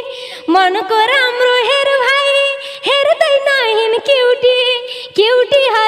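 Nepali lok dohori music: a sliding, ornamented melody over a steady held drone, with short drum strokes underneath.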